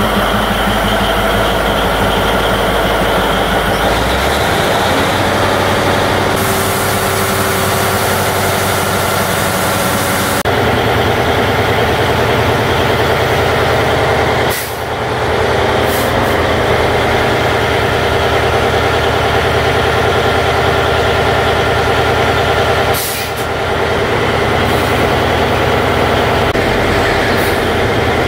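Antique cable-operated power shovel's diesel engine running loud under load while the machine digs, its tone shifting a few times as the levers are worked. Several short hisses of air cut in, one longer hiss early on and sharp ones midway and near the end.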